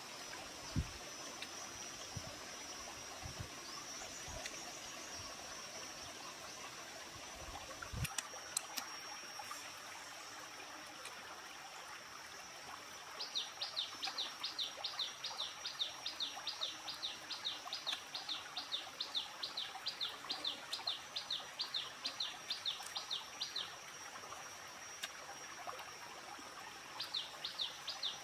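Outdoor creekside ambience: a steady high insect drone over the faint hiss of a stream, with a few soft low knocks in the first several seconds. About halfway through, a rapid series of high chirps starts at about three a second, lasts some ten seconds, and returns near the end.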